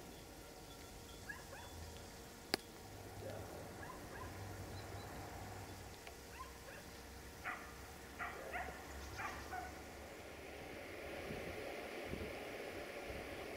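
Faint rolling rumble of a passing freight train's wagons, with a sharp click about two and a half seconds in and about four short dog barks from about seven and a half seconds. A steady hiss of running water comes in near the end.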